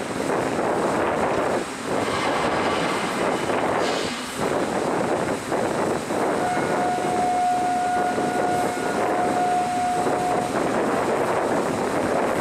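Steady rushing noise of wind and machinery on the deck of the Pioneering Spirit heavy-lift vessel while its topsides lift system raises the platform. A steady horn tone sounds for about four seconds, starting about halfway through.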